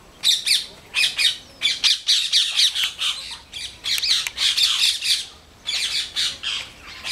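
Parrots squawking: many short, shrill, harsh calls in quick runs, with a brief lull about three quarters of the way through.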